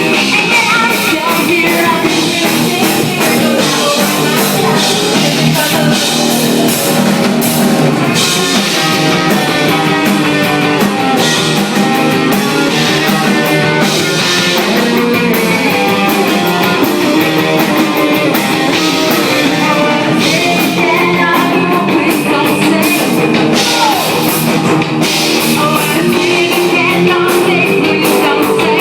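Live rock band playing, with singing, electric guitar and drum kit, loud and continuous; the sound is distorted by the close recording level.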